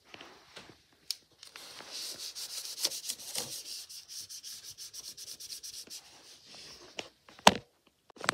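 A paper tissue scrubbed quickly back and forth over a clear plastic dry-erase sheet, wiping off marker, in a dense run of rapid strokes that thins to slower strokes. A single sharp knock near the end.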